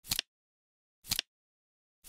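Flip-clock sound effect: a short double clack once a second as the seconds card flips over, twice here, with silence between.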